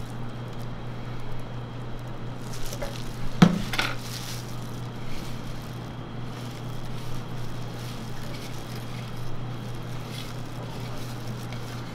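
Light scraping and clinks of a metal spatula working cream into a crepe cone in a glass jar, with one sharp knock about three and a half seconds in, the loudest sound. A steady low hum runs underneath.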